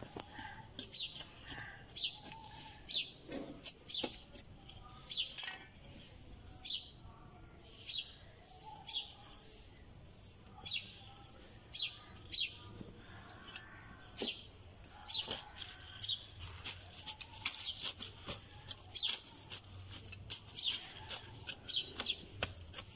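Small birds chirping: short high notes that slide downward, repeating about once a second and coming more thickly in the second half.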